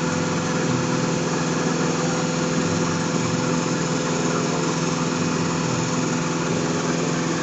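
Concrete mixer truck's diesel engine running steadily at a constant pitch while the truck discharges concrete from its drum down the chute.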